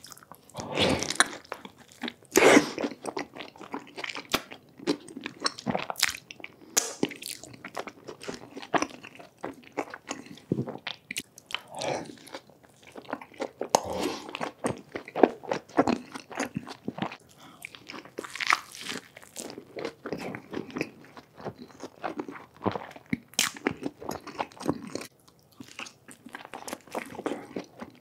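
A man biting into and chewing a tortilla wrap dipped in cheese sauce, right up against the microphone. The chewing comes as many quick, irregular clicks, with a few louder bites.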